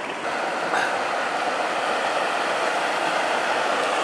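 Steady rush of a small waterfall on a mountain stream pouring into its plunge pool, getting slightly louder a moment in.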